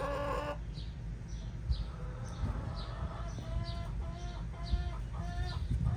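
Backyard hens clucking: a string of short, repeated pitched calls coming faster through the last few seconds.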